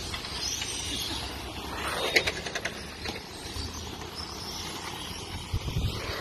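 1:10-scale RC racing trucks lapping an asphalt track, their motors whining, the whine rising and falling as they pass. A quick cluster of sharp clicks about two seconds in is the loudest moment.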